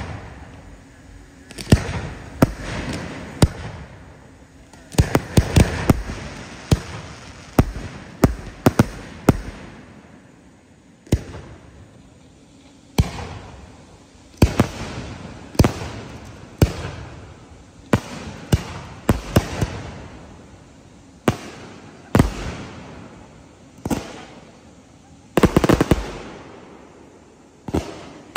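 Aerial fireworks bursting: a long run of sharp bangs, each with an echoing tail, some coming in quick clusters of three or four, with gaps of a second or two between.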